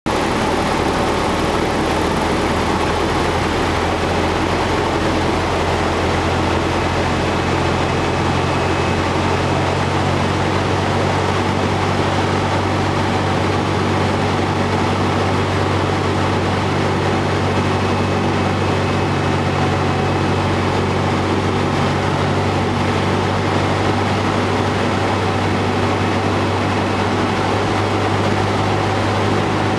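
Single-engine light propeller plane's piston engine and propeller droning steadily, heard from inside the cockpit, on approach to land.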